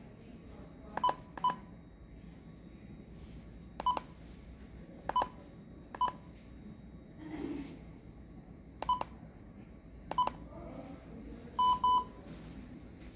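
Handheld pulse oximeter's keypad beeping as its buttons are pressed to step through the menus: short single electronic beeps every second or two, then a quick double beep near the end.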